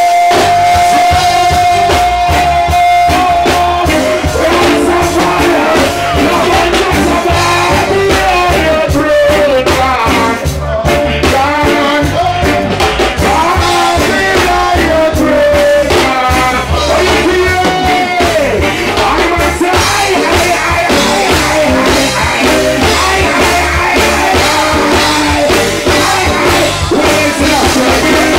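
Loud live reggae band with drums, bass and guitar, a male vocalist singing over it through the PA.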